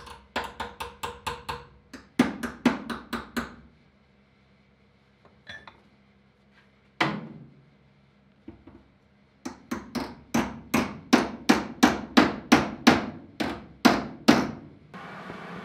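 Hammer striking the steel sheet-metal bed floor of a Chevy C10 pickup, knocking down a concave, ridged spot around the filler-cap opening. Runs of quick, ringing metal strikes, about four to six a second, a pause with a few single blows, then a longer run of strikes near the end.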